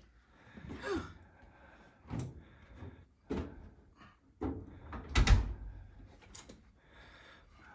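A run of knocks and thumps from a clothes dryer's door and drum being handled while clothes are moved, about six in all, the loudest just past the middle.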